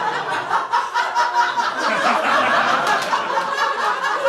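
Audience laughing together, steadily throughout.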